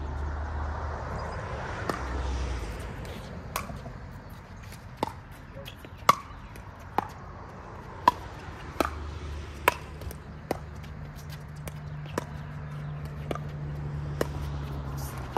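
A pickleball rally: a hard plastic pickleball struck back and forth with paddles, about a dozen sharp hollow pops roughly a second apart, starting about two seconds in.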